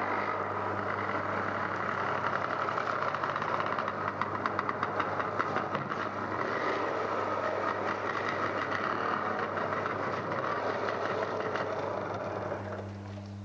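Old Benelli 125 motorcycle engine running, with a fast, even run of firing pulses in the middle. It stops shortly before the end, leaving a steady low hum from the old vinyl transfer.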